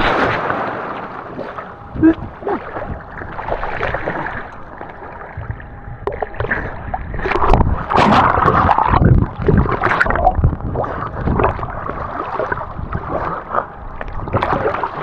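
Water splashing and sloshing in uneven surges, with a few sharper splashes.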